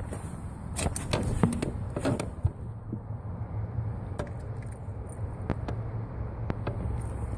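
Car engine running with a steady low rumble, while a quick cluster of clicks and knocks sounds in the first couple of seconds and a few single clicks follow later.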